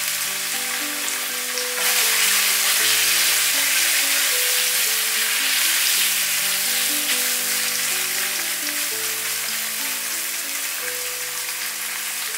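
Fried tofu and chopped onion sizzling in hot oil in a nonstick wok while being stirred with a spatula. The sizzle swells about two seconds in, as the onion goes in, and stays strong. Background music plays underneath.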